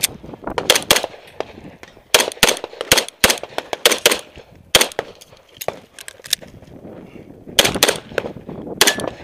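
Beretta 92F 9mm pistol firing rapid shots, mostly in quick pairs, with a break of about two and a half seconds past the middle before the firing resumes.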